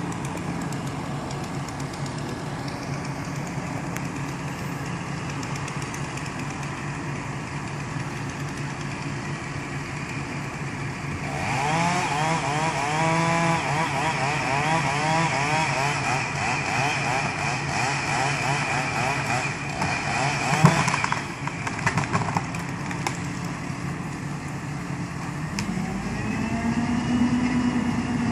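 A chainsaw cuts at full revs for about ten seconds, starting about a third of the way in, over a steady engine hum, and stops just after a sharp bang. Near the end a heavier engine revs up.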